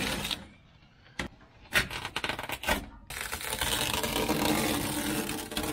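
Masking tape being peeled off the cab's painted sheet-metal floor edge after spraying: a few short rips in the first three seconds, then a longer, steady pull from about three seconds in.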